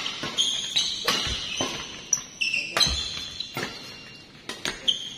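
Badminton rally: rackets hitting the shuttlecock in sharp, irregular cracks, with short high squeaks from court shoes on the floor between the hits.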